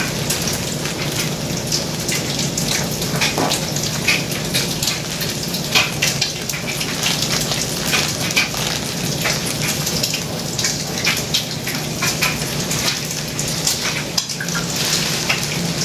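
Food sizzling and crackling in a hot frying pan, a steady hiss dotted with small pops, over a steady low hum.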